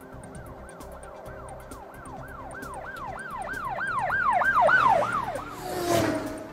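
Electronic siren in a fast yelp, its pitch sweeping up and down about three times a second and growing louder, cut off by a short burst of noise near the end. Music with a ticking beat runs underneath.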